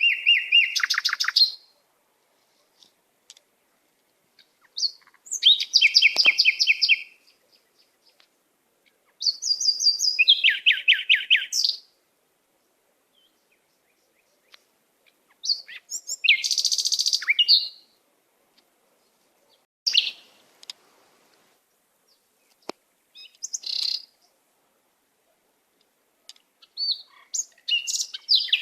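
A songbird singing, in short phrases of fast, rapidly repeated chirping notes. Each phrase lasts a second or two, with pauses of a few seconds between them.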